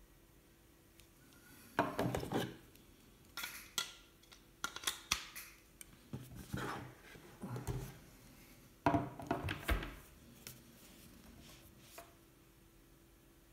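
Handling noises: several bursts of knocks, clicks and rubbing, with the loudest near the start and about two thirds of the way through, and a single click near the end.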